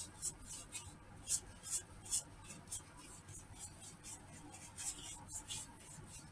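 Finishing brush swishing against a slowly turning wooden bowl on a lathe: short, soft, irregular strokes about two or three a second, over a low steady hum.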